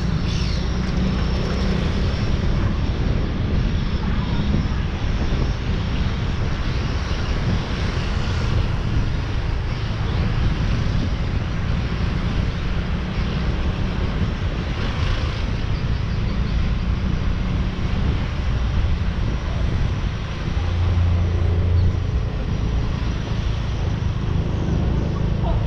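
Motorcycle engine running steadily while riding, with wind noise on the microphone; the engine hum swells briefly a few seconds before the end.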